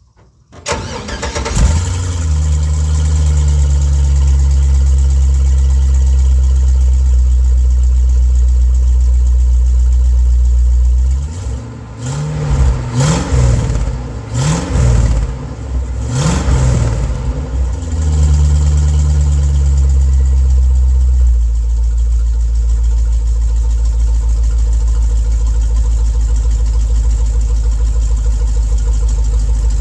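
1965 Chevy C10 pickup's engine cold-started through newly fitted dual mufflers with short turned-down pipes. The starter cranks for about a second, the engine catches and runs at a fast idle, and it is revved in several quick blips about halfway through. It then settles back and drops to a lower idle about two-thirds of the way in.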